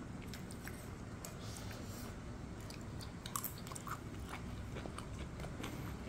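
A man chewing a mouthful of stir-fried seafood, with scattered faint clicks over a steady low background hum.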